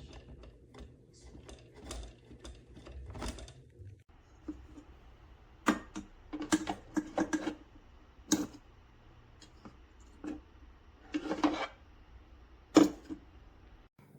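Handling noise: a string of sharp clicks, taps and knocks, with a few louder knocks and a short scraping burst about eleven seconds in.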